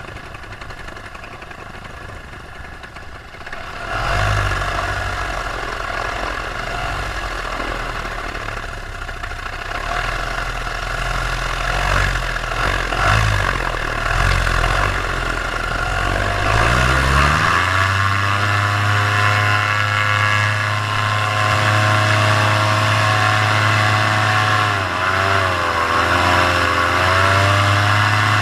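Paramotor engine and propeller running at low revs, then revving up sharply a little past halfway and holding a steady high pitch at full throttle, with a brief dip and recovery near the end. The high revs are steady here, before any power loss.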